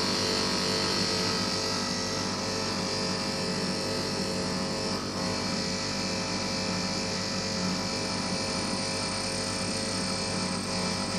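Split air conditioner running: a steady hum made of many even tones, with a high hiss over it.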